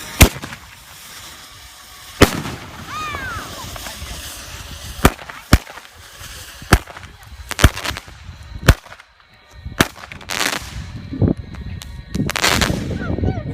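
Consumer fireworks going off: a string of about ten sharp bangs at irregular intervals, with a couple of longer hissing, crackling bursts in the second half.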